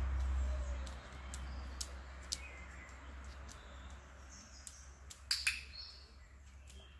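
Birds chirping, and about five seconds in a sharp double click from a dog-training clicker (press and release), the marker that tells the dog she has offered the right behaviour.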